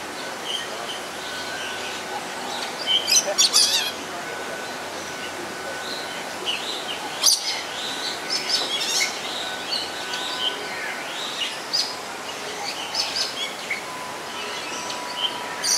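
Birds chirping and calling: many short, high chirps in irregular clusters, the loudest burst about three seconds in and another around seven seconds, over a steady background hiss.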